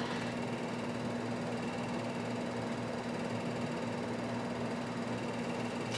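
Milling machine motor running with a steady hum.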